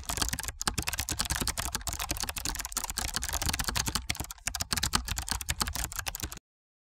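Computer keyboard typing sound effect: a rapid, unbroken run of key clicks that stops about six and a half seconds in.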